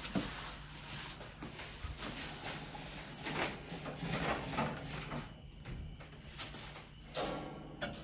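Irregular rustling and scraping as a thin electrical cable is pulled by hand through the back of a refrigerator, over a low steady hum.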